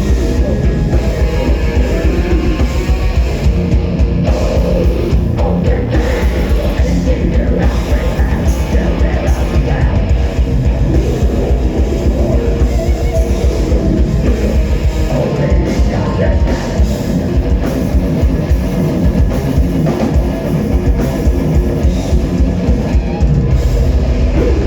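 Metal band playing live at full volume: distorted electric guitars and bass over a pounding drum kit. The low end thins briefly about two-thirds of the way through.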